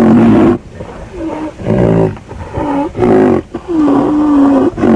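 A series of loud, deep roars, each about a second long with a bending pitch, repeating about every second and a half.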